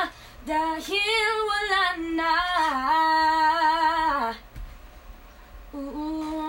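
A woman singing live, holding long wordless notes with vibrato and a winding melodic run, then, after a short pause about four seconds in, one more shorter held note near the end.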